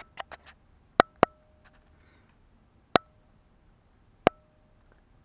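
Sharp clicks and taps from the camera being handled. There are a few light ones at the start, a close pair about a second in, then single ones near three and four seconds. Some are followed by a short, faint ringing tone.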